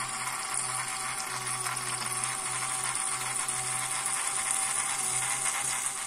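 Small tabletop fountain running: a thin stream of water pouring from a little bucket spout and splashing into the basin, over the steady low hum of its small submersible pump.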